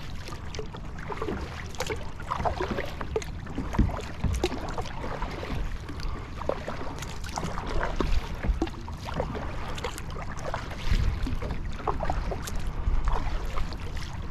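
Water splashing and lapping around a Field & Stream Eagle Talon 12 kayak, in many short irregular splashes with no steady rhythm, over a low rumble of wind on the microphone.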